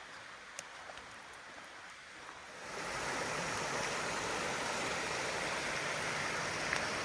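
Faint ticks, then a steady rushing noise of running water that comes up about three seconds in and holds evenly.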